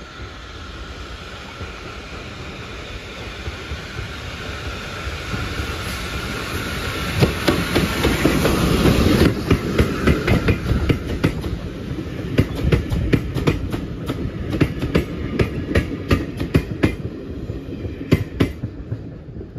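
Steam-hauled train of Pullman coaches approaching and passing close by. A rumble rises to its loudest as the locomotive goes past about eight or nine seconds in. Then the wheels click in a quick, even rhythm over the rail joints as the coaches roll by, dying away near the end.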